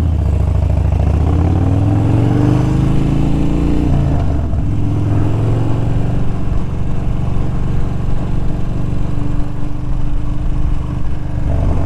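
Harley-Davidson Street Bob's V-twin engine under way: it rises in pitch as the bike accelerates for about four seconds, dips briefly, then runs at a steady pitch.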